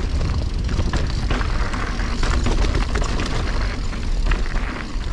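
Mountain bike riding down a rocky trail: wind rumbling on the microphone, with repeated knocks and rattles as the tyres and frame clatter over rocks.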